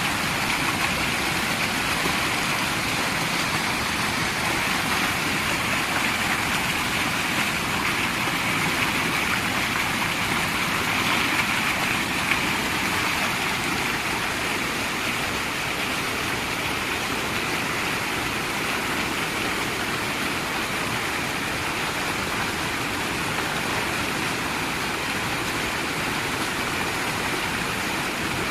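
Chania Falls waterfall: a steady, unbroken rush of falling water.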